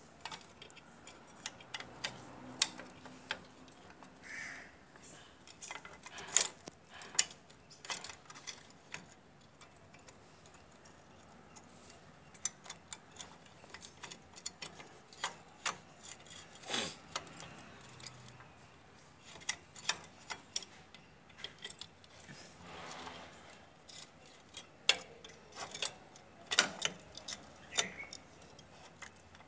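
Metal brake parts of a Bajaj three-wheeler's rear drum brake being handled and fitted: irregular clicks and clinks of the shoes, lever and springs against the backing plate, with a few sharper clacks.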